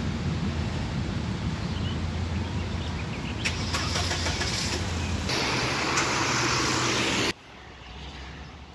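Car engines idling in a queue with a steady low hum, and tyre hiss on a wet road that swells louder for a couple of seconds past the middle. About seven seconds in, the sound drops abruptly to quieter outdoor background.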